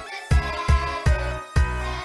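Background music: a song with a strong, steady bass beat, about two and a half beats a second.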